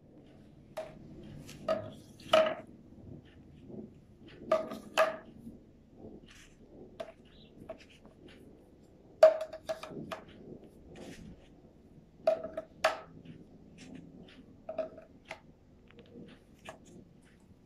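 Plastic rings of a ring stacker toy clacking against each other and the stacking post as they are handled and stacked. The clacks come at irregular intervals, a few of them louder than the rest.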